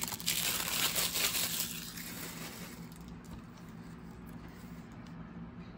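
Clear plastic shrink-wrap crinkling and crackling as it is handled and pulled off a Blu-ray case, dying away after about two seconds. After that only a faint steady hum remains.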